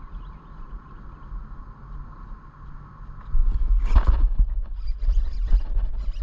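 A bass strikes a topwater frog lure with a splash about four seconds in, after a faint steady hum. The strike comes with a sudden loud low rumble, and a run of short clicks and rustles follows as the fish is hooked and fought in the grass.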